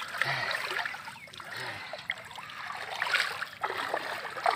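Shallow water sloshing, splashing and trickling as a person wades and lifts a bamboo polo fish trap out of the water, water running off its slats, with louder surges about three seconds in and near the end.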